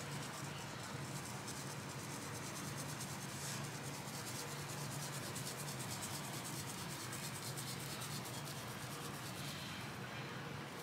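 Coarse 16-mesh black pepper sprinkled over a raw brisket, the grains falling off a hand onto the meat and cutting board as a faint, steady hiss.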